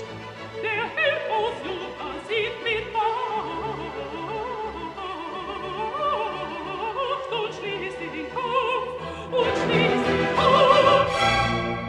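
Operatic singing with a wide vibrato over orchestral accompaniment, swelling to its loudest about ten seconds in.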